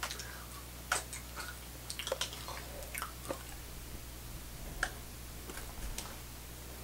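A Treeing Walker Coonhound chewing a Skittle and smacking its lips as it takes the candy from a hand: scattered, irregular mouth clicks and smacks about once a second.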